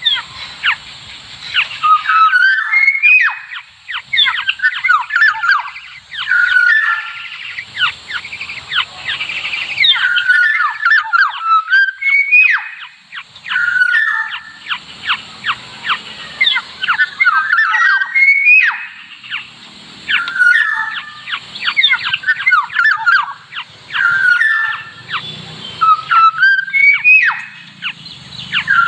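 Black-naped oriole fledgling calls used as a trapping lure. A short harsh phrase repeats about every two seconds, with rapid sharp chips in between.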